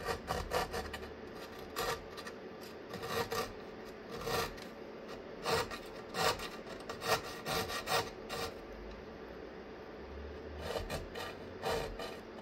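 Small hand file rasping in short, uneven strokes against the edge of the switch cutout in a metal power-supply front panel, enlarging the opening so a replacement circuit breaker will fit. The strokes pause for about two seconds near the end, then a few more follow.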